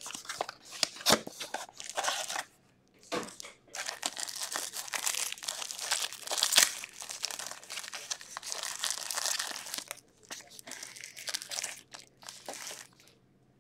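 Hands tearing open a cardboard trading-card box, then crinkling and tearing open a foil card pack, the wrapper rustling and crackling in the fingers.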